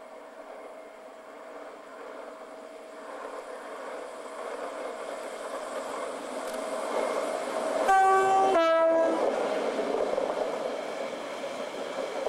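Class 60 diesel locomotive approaching and passing, its engine growing louder. It sounds its two-tone horn about eight seconds in, a high note and then a lower one. The rolling rumble of its train of freight box wagons follows the horn.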